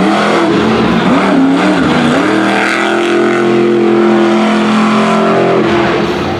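Monster truck engine revving hard as the truck drives across the dirt. Its pitch wobbles with the throttle for the first couple of seconds, then rises and holds high for about three seconds before dropping off near the end.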